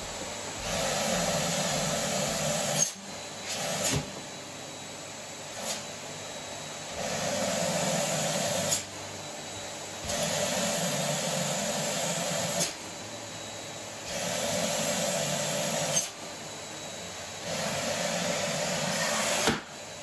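Canister vacuum cleaner running, its sound stepping up louder and changing tone about six times for two seconds or so each while a balloon is sucked onto the wand's nozzle. Each spell ends with a sharp snap as the balloon comes free and the suction drops back to its steady run.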